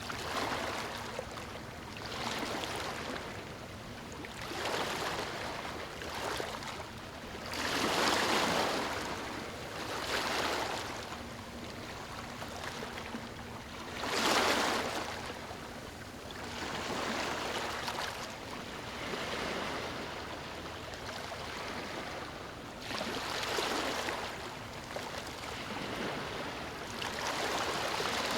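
Small, calm waves washing onto a sandy beach, each swelling and fading away every two to three seconds, with two stronger washes about 8 and 14 seconds in.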